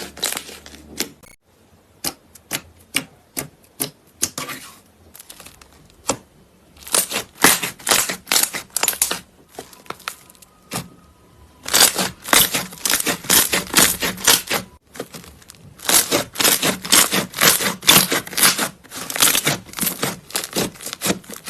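Slime being squished and pressed by hand, giving rapid crackling and popping clicks in several bursts, with quieter stretches between them.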